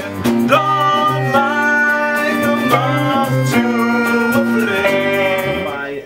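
Live band music: a man singing a held melody over plucked acoustic string accompaniment.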